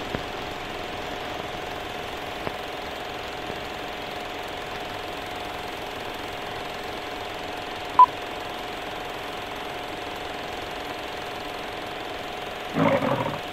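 Steady whir of a film projector running, with a faint steady hum, as the film countdown leader plays. About eight seconds in there is a single short beep, the countdown's sync beep. Near the end a lion's roar begins, for the studio-logo lion.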